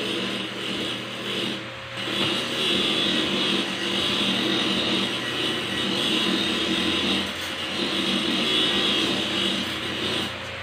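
Corded electric hair clippers buzzing steadily while cutting hair, with a brief dip about two seconds in.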